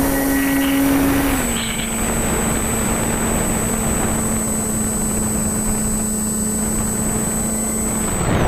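Electric motors and propellers of a twin-motor RC plane (HobbyKing SkyMule) heard from the onboard camera in flight: a steady drone that drops a little in pitch about a second in as the throttle eases, with a thin high whine over it and a constant rush of air.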